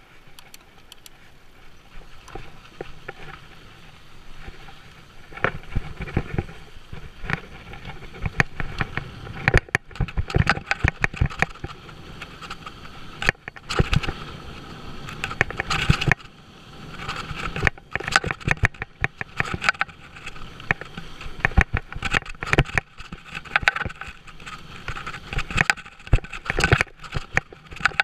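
Mountain bike riding fast down a rocky dirt trail: tyres on loose dirt and stones, and the bike rattling and knocking over bumps. The knocks come thick and irregular, busier from about five seconds in.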